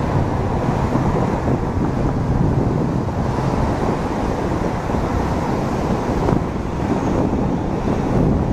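Airbus A319-111's CFM56-5B jet engines running as the airliner touches down and rolls out on the runway, a steady loud rumble with wind noise on the microphone.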